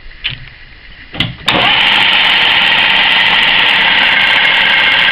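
Centre lathe switched on about one and a half seconds in, after a couple of light clicks: the motor and headstock start up at once and run steadily and loudly.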